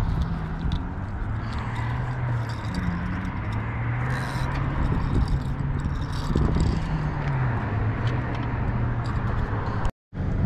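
A motor engine running, its low hum slowly drifting up and down in pitch over a steady wash of wind and water noise; the sound cuts out briefly near the end.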